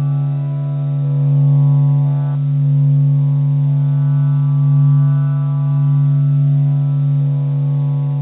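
Sustained low drone, billed as the sound of the sun: one steady pitch with a rich stack of overtones, slowly swelling and easing in loudness, with a few of the upper overtones dropping away about two seconds in.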